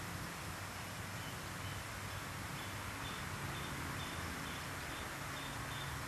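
An insect, cricket-like, chirping in short high notes about twice a second, starting about a second in, over a steady outdoor hiss.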